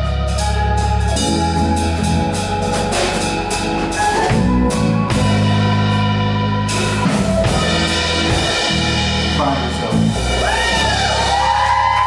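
Music with a steady bass line and sharp drum hits, with a voice singing over it in the last couple of seconds.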